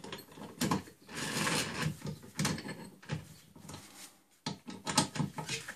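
Irregular metal clicks, knocks and short scrapes as a turned steel bar is set into a lathe's chuck and tightened with a chuck key.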